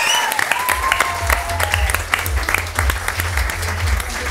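Audience applauding, many hands clapping, with outro music coming in underneath about a second in.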